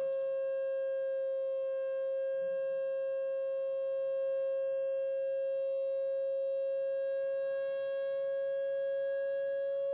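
Loudspeaker driven by a signal generator, playing a steady mid-pitched tone with faint overtones while it is tuned toward the wine glass's resonant frequency. The pitch edges up slightly near the end.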